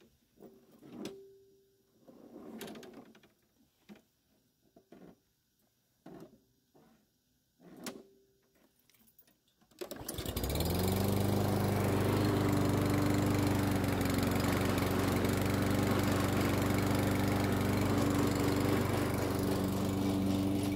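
A few faint knocks, then about halfway through a Toro self-propelled mower's Briggs & Stratton single-cylinder engine starts, its pitch rising briefly as it comes up to speed before it settles into a steady run. This is the test run after a new drive belt was fitted.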